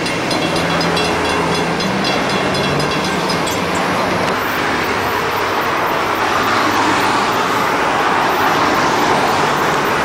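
Level-crossing bells ringing in a regular, high-pitched pulse for the first three or four seconds while the barrier arms lift. After that comes steam locomotive J 1234 working towards the microphone with its train: a steady rushing of exhaust and rail noise, growing a little louder.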